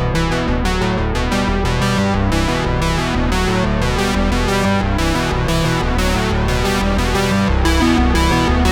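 Background music: a fast electronic keyboard track with rapid repeated synthesizer notes.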